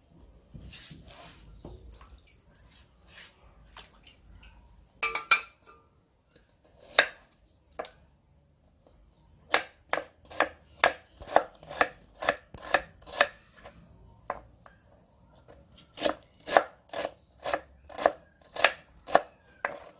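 Kitchen knife chopping a red onion on a wooden chopping board: a few scattered knocks at first, then two runs of steady strokes at about two to three a second in the second half.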